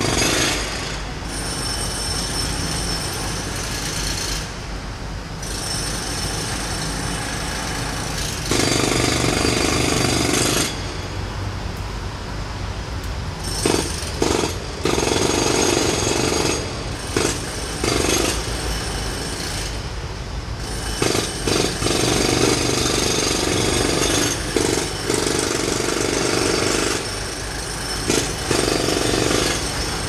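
Several jackhammers hammering in overlapping spells, starting and stopping every few seconds with short lulls between, over a steady low rumble.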